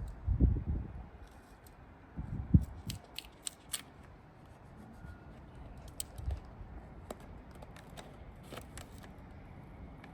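Hands working with masking tape and a vinyl decal while hinging it in place: short sharp clicks and snips scattered through, with two low thumps in the first three seconds.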